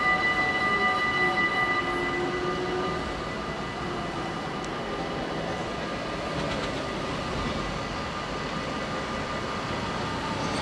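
Level-crossing warning bells ringing as the barriers come down, stopping about two seconds in. They give way to the steady rumble of a slow rail-mounted work machine, an excavator-type track vehicle, approaching and rolling over the crossing.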